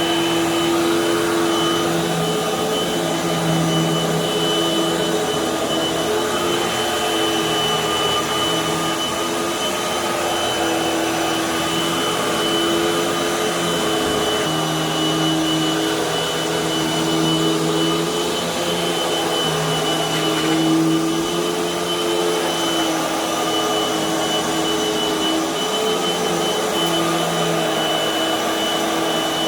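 Hoover High Performance upright vacuum cleaner running over carpet with its floor beater turning: a loud, steady motor hum and whine whose pitch wavers slightly as the load changes.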